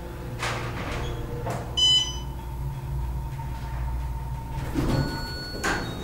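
Otis Series 5 elevator car riding up one floor, with a steady low hum of the car in motion and a few faint knocks. A short, loud electronic beep sounds about two seconds in, and a softer chime comes near the end as the car arrives at the second floor.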